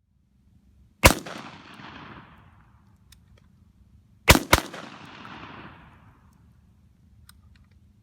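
Three rifle shots: one about a second in, then a quick pair about three seconds later. Each is followed by an echo that trails off over a second or so.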